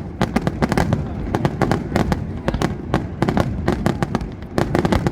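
Fireworks display going off in a rapid, unbroken run of sharp bangs and cracks, several a second.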